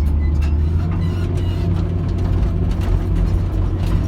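Hitachi EX230LC-5 excavator's diesel engine running steadily; its low hum steps up slightly in pitch about a second in.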